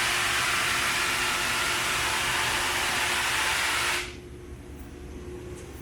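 A steady, loud hiss, like air rushing out, that cuts off suddenly about four seconds in, leaving a faint steady hum.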